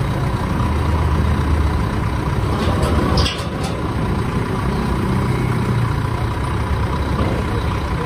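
A diesel engine running steadily with a low hum. About three seconds in there is a short burst of higher-pitched noise, and the engine then runs on a little quieter.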